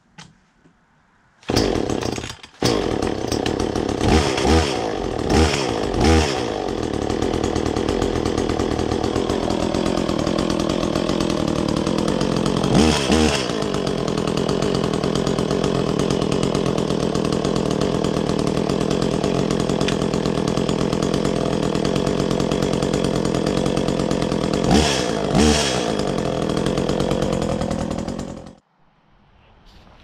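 Echo two-stroke gasoline chainsaw starting: it catches, stumbles for a moment, then runs steadily with quick throttle revs in the air, several early on, one midway and two near the end, before cutting off suddenly.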